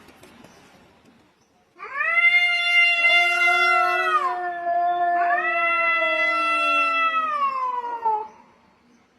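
Cats giving long, drawn-out yowling meows, starting about two seconds in. Two or more voices overlap at different pitches, each call held steady for a few seconds before sliding down at the end.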